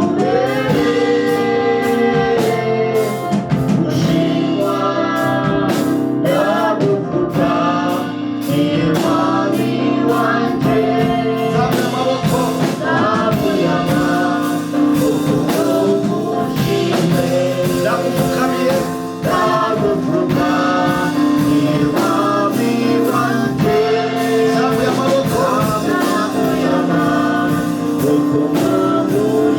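Gospel praise and worship song: a worship team singing over a band with a steady beat.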